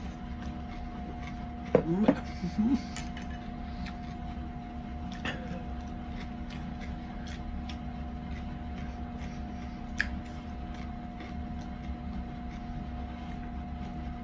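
Eating at the table: small clicks of tableware and faint chewing over a steady electrical hum, with a short murmur of the voice about two seconds in.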